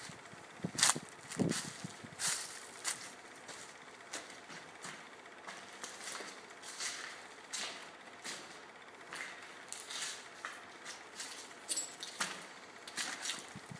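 Footsteps crunching on dry leaves and debris at a steady walking pace.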